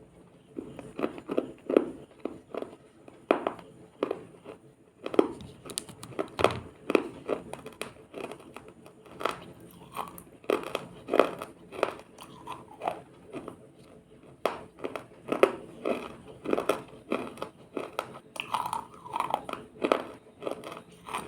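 A person biting and chewing chunks of frozen ice: loud sharp crunches, one or two a second, starting about half a second in.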